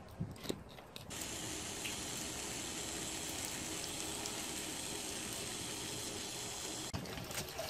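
Water running steadily from a hose, an even rush that starts about a second in and stops abruptly near the end. It is preceded by a couple of soft clicks.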